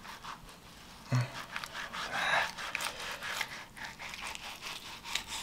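Fillet knife scraping and tapping on a plastic cutting board as it rides between a crappie fillet's skin and meat, with many small scrapes and clicks and a soft knock about a second in.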